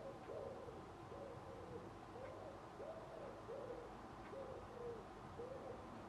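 A pigeon cooing: a run of soft, low coos, each note rising and falling slightly, about one every two-thirds of a second, stopping shortly before the end.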